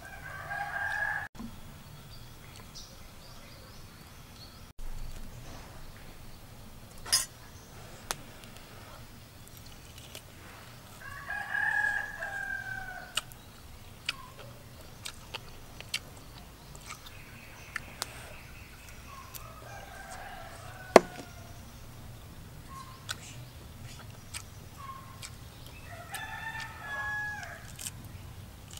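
A rooster crowing four times, each crow one to two seconds long, with scattered sharp clicks between the crows.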